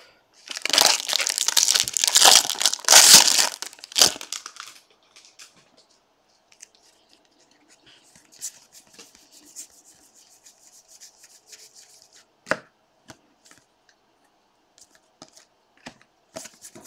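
Baseball card pack's shiny wrapper being torn open and crinkled for about four seconds, loud and crackling. After that come only faint soft handling sounds of the cards being sorted, with one sharp click about twelve seconds in.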